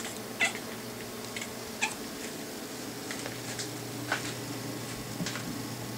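Six-month-old calico kitten giving several very short, sharp mews scattered through, the loudest about half a second in, over a steady low hum.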